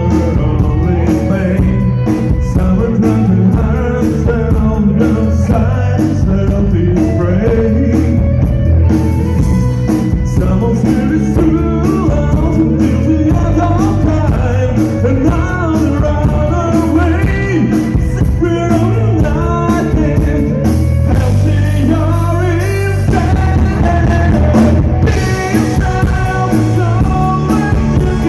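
Rock-and-roll song with a singing voice over guitar, bass and drums, keeping a steady beat.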